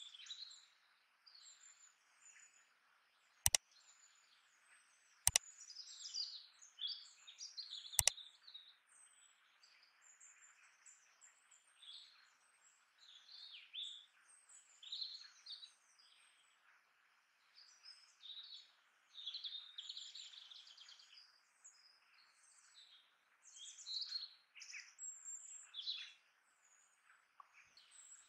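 Many small birds chirping and singing in quick, overlapping calls, over a faint steady hiss. Three sharp clicks, the loudest sounds, come about two seconds apart in the first eight seconds.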